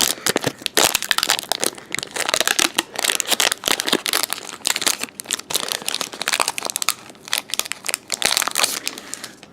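Crinkling and rustling of a foil trading-card booster pack wrapper being torn open and handled. The crackles are dense and irregular and thin out near the end.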